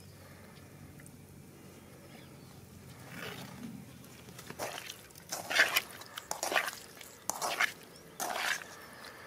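Hands working raw chicken pieces in a metal pan: a run of short, noisy squishing rustles about once a second, starting about three seconds in after a faint steady hum.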